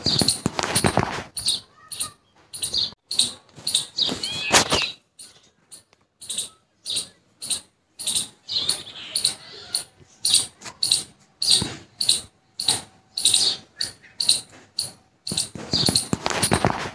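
Ducklings peeping: a steady run of short, high peeps, two or three a second. Bursts of splashing water at the start, around four seconds in and near the end.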